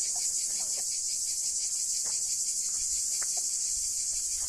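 Cicadas in a steady, high-pitched chorus, unbroken throughout.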